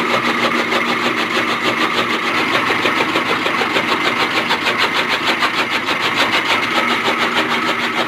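A machine's engine or motor running steadily with a fast, even pulse.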